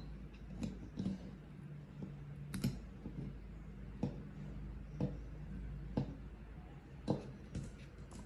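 Sharp metallic clicks, about one a second, as needle-nose pliers pry a wire retaining ring out of the rusty cast-iron base of a hydraulic jack, the steel ring snapping against the housing and ram as it is worked free.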